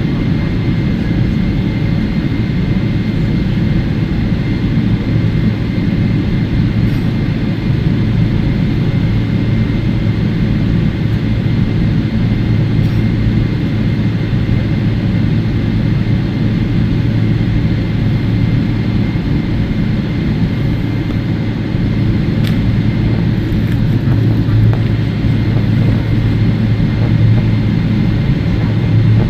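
Cabin noise inside a Boeing 777-300ER taxiing, heard from a window seat: the GE90-115B engines and airframe give a steady low rumble at taxi power, with a faint steady high whine over it.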